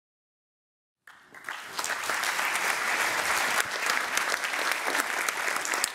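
Audience applauding. The clapping starts about a second in after silence and then runs steadily.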